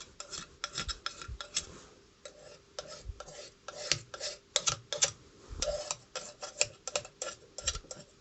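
Thick utility-knife blade scraping baked-on soot off the glass door of a wood stove, in a rapid, uneven series of short scratchy strokes.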